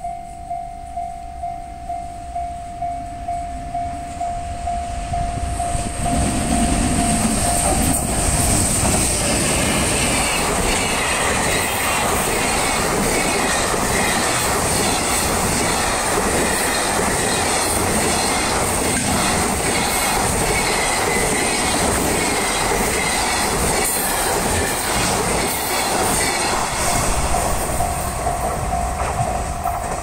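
Japanese level-crossing warning bell ringing at about two strikes a second. About six seconds in, an EH500 electric freight locomotive and its long train of container wagons pass at high speed: loud rumble and wheel clatter over the rails with a high steady whine. The bell comes through again near the end as the last wagons go by.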